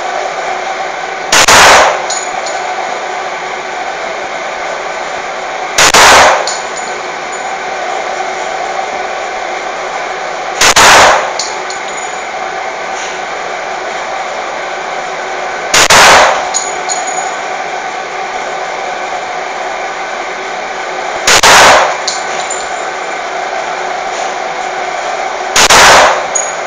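Pistol shots fired one at a time, six in all, about five seconds apart, each ringing briefly in the enclosed range, over a steady background hum.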